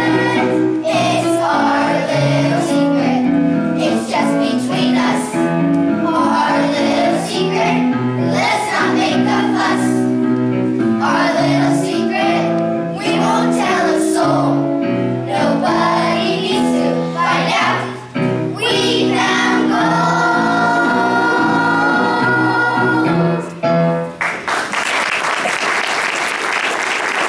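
Children's choir singing a song from the musical over instrumental accompaniment. The song ends about three seconds before the end, and audience applause follows.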